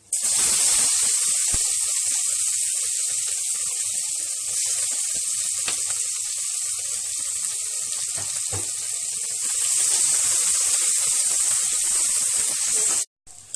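Chopped onions frying in hot vegetable oil: a loud, steady sizzle that starts suddenly as the onions go in, swells again about ten seconds in and cuts off abruptly near the end. A few faint clicks of the stirring spoon are heard.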